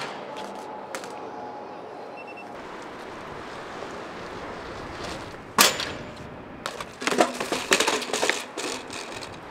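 BMX bike riding on pavement, with one sharp impact about five and a half seconds in, then a clatter of knocks and scrapes near the end as the bike and rider crash onto stone paving.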